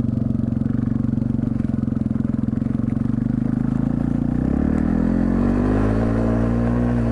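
Yamaha TT-R250 dirt bike's single-cylinder four-stroke engine running steadily, then picking up revs about four seconds in and holding at the higher pitch.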